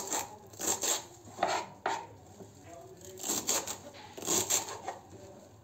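Kitchen knife chopping fresh greens on a cutting board, in irregular clusters of quick cuts with short pauses between them.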